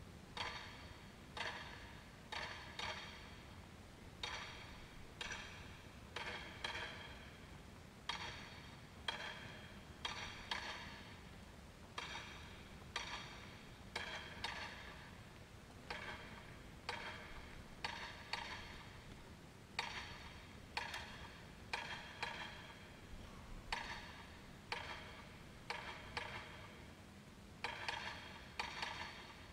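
Sharp percussion ticks, about two a second, each with a short pitched ring, tapped out to keep a marching band's step while the band marches in without playing.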